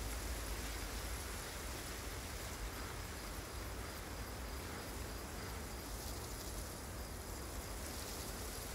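Steady outdoor field ambience: an even hiss over a low rumble, with faint insect chirring.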